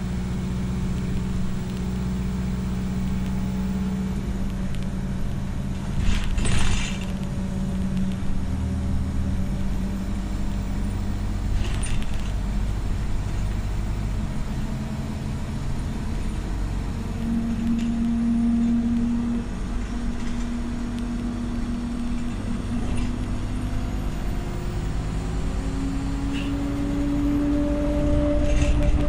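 Bus engine and drivetrain heard from inside the passenger saloon while the bus is under way. Its steady low tones shift in pitch a few times and climb twice, about 17 seconds in and again from about 24 seconds as it accelerates. Short knocks of body rattle come about 6 and 12 seconds in, the first the loudest moment.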